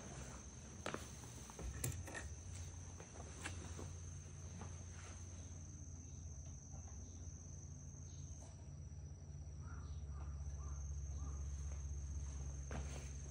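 Crickets trilling in one steady high-pitched note over a low steady hum, with a few faint taps in the first few seconds.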